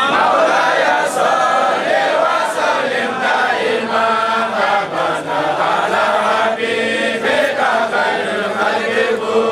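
A group of voices chanting devotional verse in praise of the Prophet together, many voices overlapping, starting abruptly.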